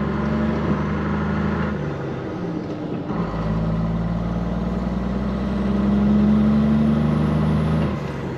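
ERF EC11 lorry's Cummins M11 straight-six diesel pulling hard up a hill, heard through the open cab window. The engine note drops off about two seconds in and comes back heavier about a second later, as with a gear change. It swells to its loudest near the end, then breaks off briefly again.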